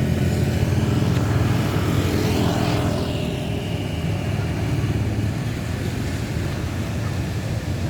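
Tour bus engine running with a steady low drone. A rushing sound of a vehicle passing swells and fades, peaking about three seconds in.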